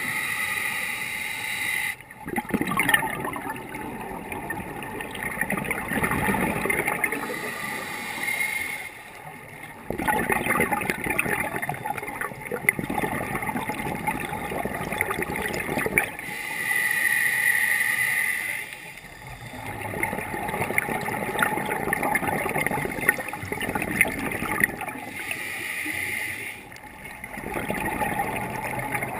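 Scuba diver's breathing through a regulator underwater: a hissing inhale alternating with long gurgling rushes of exhaled bubbles, in several slow breaths separated by brief pauses.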